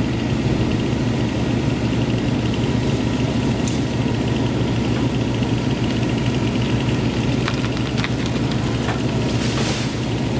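An engine running steadily at one constant speed, with a few light clicks and a short hiss near the end.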